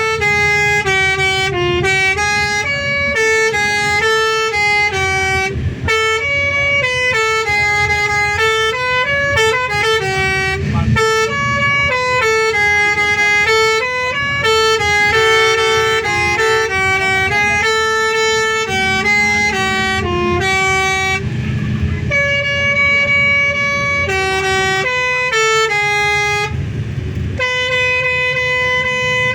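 Indonesian bus 'telolet' horn, a set of multi-tone air horns playing a tune of held notes that step up and down in pitch, with short breaks between phrases. The bus engine runs underneath as a steady low rumble.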